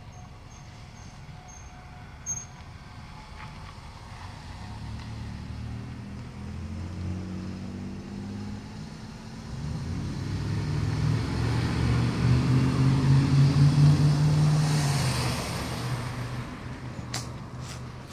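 A motor vehicle driving by: its engine hum builds slowly, is loudest about two-thirds of the way through, then fades away. A few sharp clicks come near the end.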